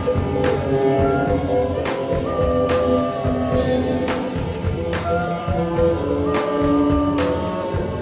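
Experimental electronic music: layered, sustained held tones with a sharp percussive click-hit about once a second.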